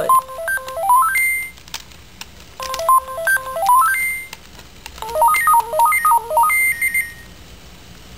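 Sony AIBO robot dog playing three short electronic melodies of stepped beeping tones from its speaker, each phrase running up and down and ending on a held high note.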